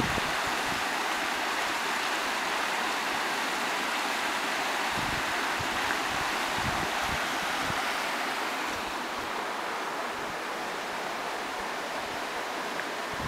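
Shallow river running over rocks in small rapids: a steady rushing that eases off a little about two-thirds of the way through, with a few soft low thumps.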